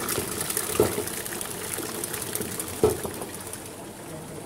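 Stand mixer whisk beating a runny chocolate batter as eggs are added, a steady wet churning, with two dull knocks about a second in and near three seconds.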